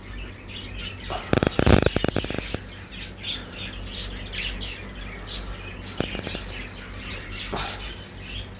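Many small cage birds, budgerigars and finches, chirping and twittering over one another. About a second and a half in there is a brief, loud burst of rapid clattering.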